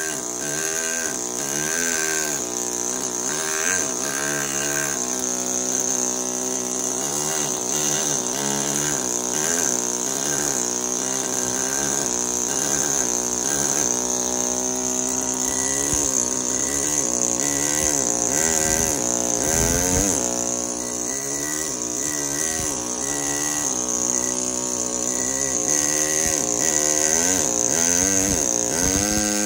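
Pneumatic carving hammer driving a chisel into marble: a rapid mechanical buzz whose pitch shifts up and down, over a steady high hiss.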